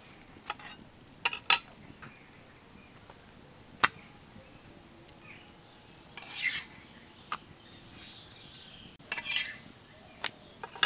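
A metal utensil clicking and scraping against a pan as rotis are turned and lifted off while dry-roasting. The sounds come as scattered short scrapes and clicks, with one sharp clink about four seconds in.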